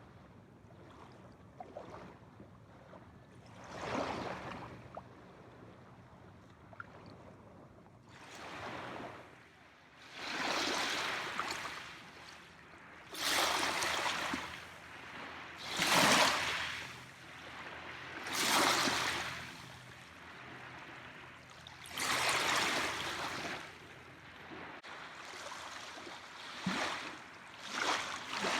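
Small waves breaking and washing up on a shore one after another. Each wave is a rushing surge that swells and fades over a second or two, every few seconds, with a quieter wash in between.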